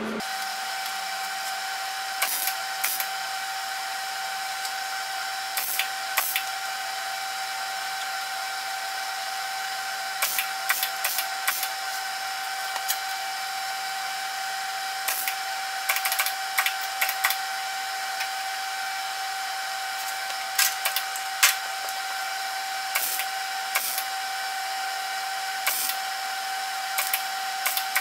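Wire-feed (MIG) welder tack- and stitch-welding a thin steel patch into a rusted truck fender: short bursts of arc crackle, a fraction of a second each, come in clusters every few seconds over a steady high-pitched hum.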